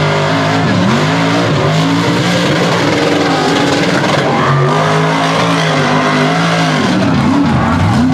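Mega truck's engine revving hard under load as it churns through a mud pit, its pitch rising and falling several times.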